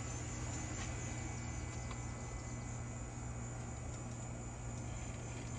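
Outdoor garden background: a steady high-pitched insect drone with a steady low hum underneath, and a few faint clicks.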